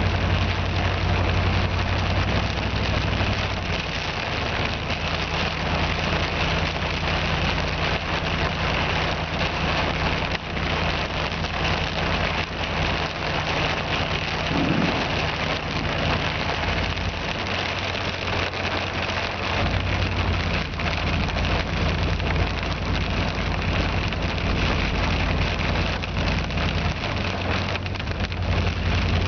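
Heavy wind-driven rain beating steadily on a vehicle in thunderstorm winds of about 60 mph, with a low vehicle hum underneath.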